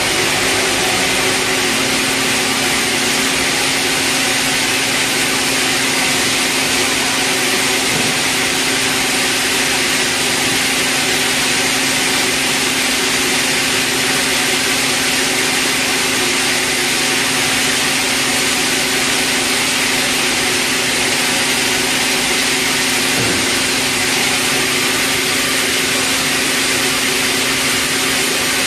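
Sawmill band resaw running free with no timber in the cut: a steady machine hum with a strong hiss, unchanging throughout.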